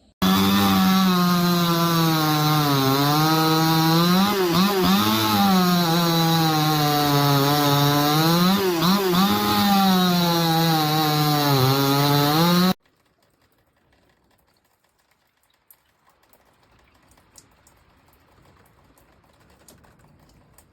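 Supmix 60cc two-stroke chainsaw engine running at high revs, its pitch dipping briefly several times. It cuts off suddenly about twelve seconds in, leaving only faint background noise with a few small clicks.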